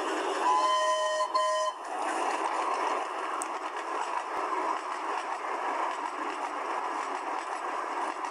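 A train horn sounds a held chord of two or three notes for about a second, with a brief break, over a steady rushing noise of a train running, which carries on after the horn stops.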